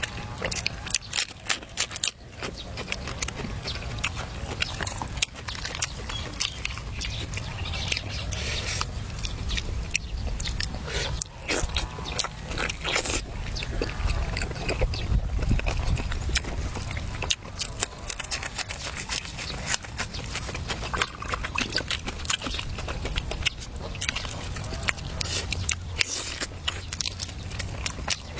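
Close-up eating sounds: food being bitten and chewed, with frequent irregular clicks and small scrapes.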